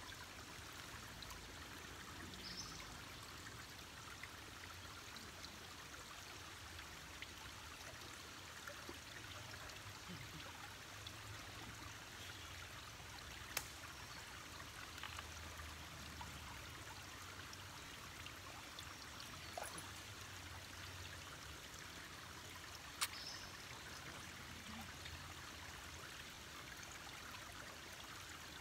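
Shallow forest creek trickling over flat rock ledges: a steady, faint babble of running water, with a few sharp clicks about halfway through and near the end.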